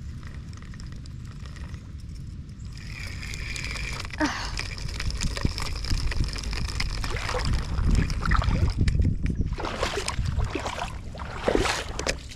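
Water sloshing and splashing as a person wades through it, getting louder about three seconds in.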